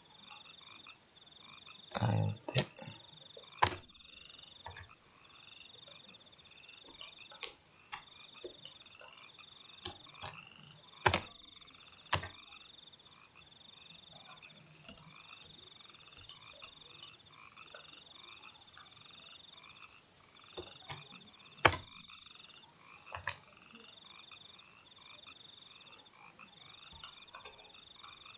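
Computer keyboard and mouse clicks, sharp taps every few seconds, the loudest near the middle and about three-quarters through. Under them runs a steady, pulsing high-pitched chorus of calling animals.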